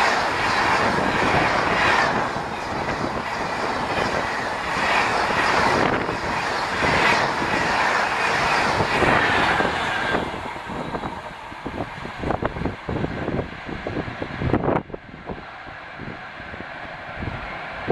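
Rajdhani Express passenger coaches passing at about 130 km/h: a loud rush of wheel and air noise that surges every couple of seconds as each coach's wheels go by. About ten seconds in, the rush falls away to fainter, separate wheel clacks as the train draws off.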